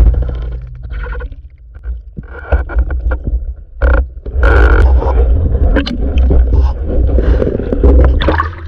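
Muffled underwater noise heard by a spearfishing diver's camera: a steady low rumble with bubbling and scattered clicks, then splashing as he breaks the surface near the end.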